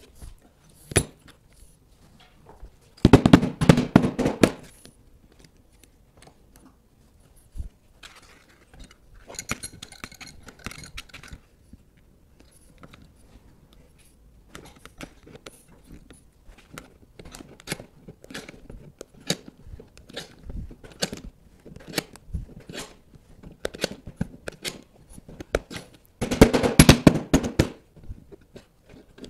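Steel C-clamps being placed and tightened on a wooden bending form that holds laminated wood strips: scattered knocks of metal on wood, with two dense bursts of rapid clicking, one a few seconds in and one near the end.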